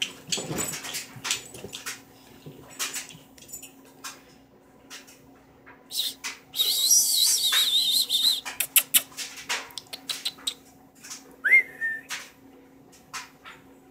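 A playful puppy's high, wavering whine for about two seconds midway and a short rising whine near the end, among scattered clicks and bumps as it scrambles after the laser dot.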